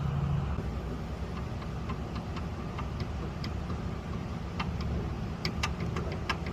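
Light, irregular metallic clicking from a turbocharger wheel and shaft with too much play, over a steady low rumble. The clicks come faster after about five seconds.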